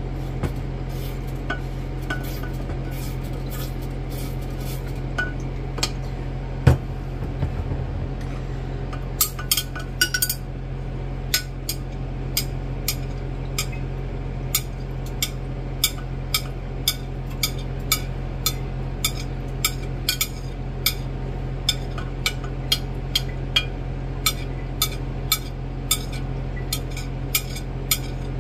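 Light clinks of glassware, such as a glass rod or utensil tapping a beaker, a few scattered at first with one louder knock, then repeating evenly about one and a half times a second. A steady low hum runs underneath.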